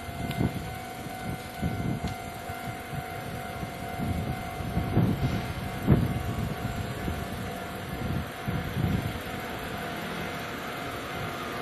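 Level crossing warning bell ringing steadily while an electric train passes, its wheels thumping irregularly over the rail joints.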